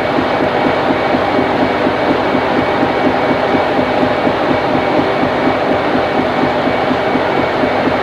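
Loud, steady machinery noise aboard a fishing trawler: the ship's engine and deck gear running with a fast, even throb.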